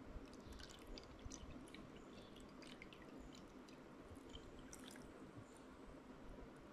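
Faint drips and small ticks as orange drink is poured from a plastic bottle into a plastic cup, dying away about five seconds in; otherwise very quiet.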